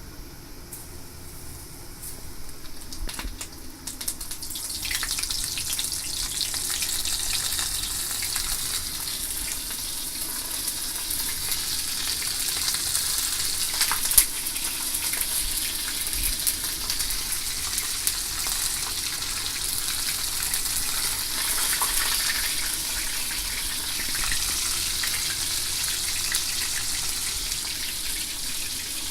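Horse mackerel frying in hot oil, a steady sizzle full of small crackles. It swells up about four to five seconds in, then keeps on.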